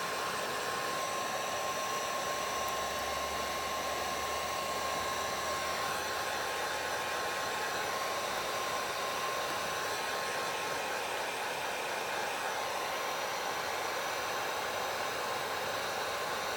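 Electric heat gun running steadily, its fan blowing with a thin, steady whine, as it warms vinyl tint film to make it pliable.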